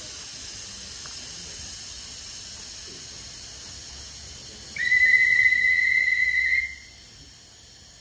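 A single long whistle blast about five seconds in, one steady high tone held for about two seconds, the kind used on the platform as a departure signal for a train standing at a station. Faint steady hiss of the stopped train underneath.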